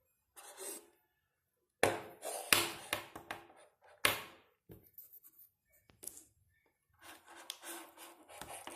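Hands handling a USB-C adapter and plugging it into a laptop's USB-C port: bursts of rubbing and scraping on plastic, with several sharp clicks and knocks, one of them about four seconds in.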